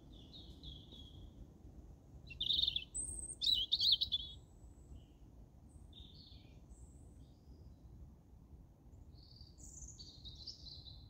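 European robin singing: a series of high, thin warbling phrases, loudest and most rapid about two to four seconds in, with softer phrases scattered before and after.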